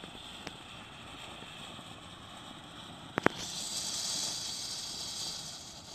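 Large flower pot (anar) fountain firework hissing steadily as it sprays sparks. Two sharp cracks come about three seconds in, after which the hiss turns louder and higher.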